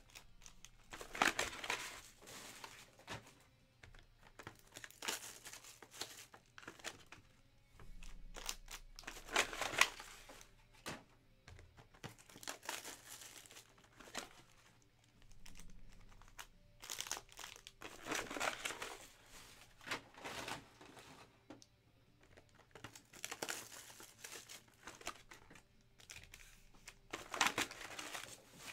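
Clear plastic shrink wrap on trading-card boxes being pulled off and crumpled by hand, crinkling and tearing in repeated bursts every few seconds.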